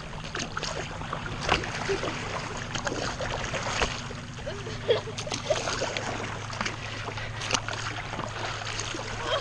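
Paddle strokes and small water splashes and drips around a stand-up paddleboard, irregular and light, over a steady low hum.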